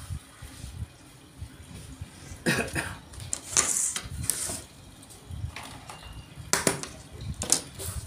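A hand wiping and rubbing across a cutting table's smooth tabletop with a cloth, in several short scraping strokes with light knocks between them, the longest stroke a little after the middle.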